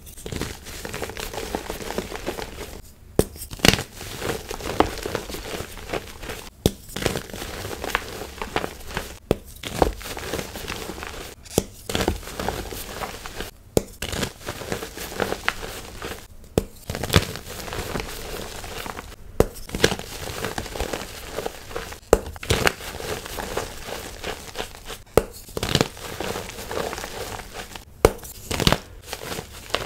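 Molded blocks of gym chalk crushed and crumbled between the fingers: dense, crisp crunching and crackling, broken by short gaps every two to three seconds.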